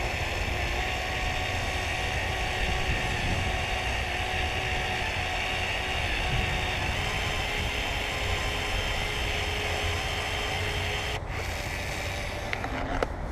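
Steady mechanical hum with a faint, steady whine that steps slightly higher in pitch about halfway through.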